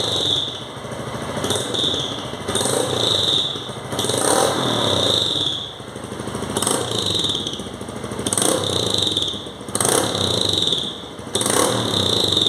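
Honda CG 160's single-cylinder engine revved in a series of about eight short throttle blips through a fairly open Roncar ML Competition 'estralador' exhaust, loud on each blip. As the throttle is let off, the exhaust gives a high whistle.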